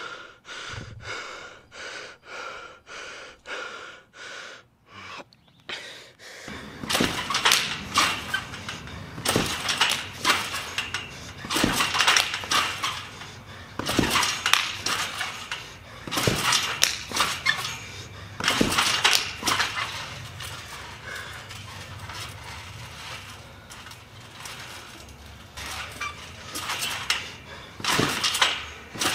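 Backyard trampoline's steel springs and frame jangling and clanging in clusters every couple of seconds as a jumper bounces and lands kabooms on it. It opens with a run of short, evenly spaced ticks about twice a second.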